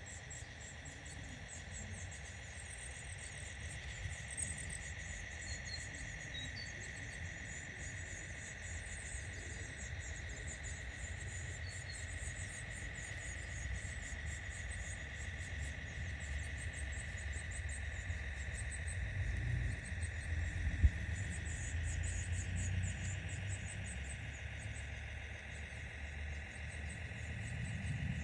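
Electric drive motor and gearbox of a radio-controlled scale Unimog truck whining steadily as it crawls slowly, with a low drivetrain rumble that grows louder past the middle. Insects chirp throughout.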